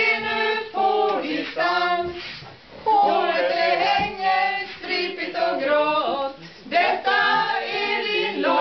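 A small mixed group of men and women singing a song together in Swedish, phrase after phrase with short breaths between.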